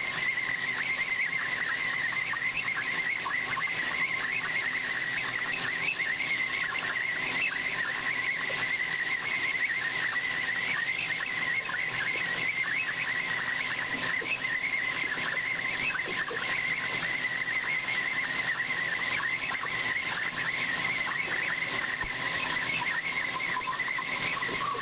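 Horizontal bandsaw blade cutting through a solid bar of 15-5 PH stainless steel. It is a steady cutting noise with a high-pitched whine that wavers slightly in pitch.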